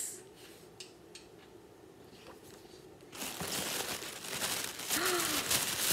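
Packing material crinkling and rustling as hands dig through an opened mail-order box, starting about three seconds in after a few faint taps.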